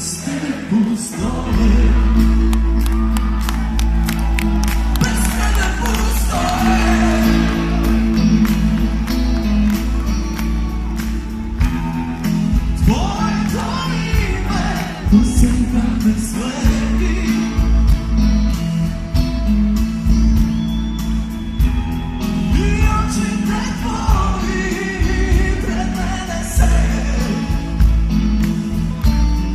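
Live rock band playing: a male lead singer over electric guitars, bass and drums, heard loud through the PA from within the audience in a large hall.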